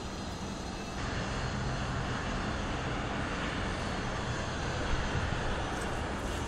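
Steady mechanical background noise, an even rush with a low hum under it, growing a little louder about a second in.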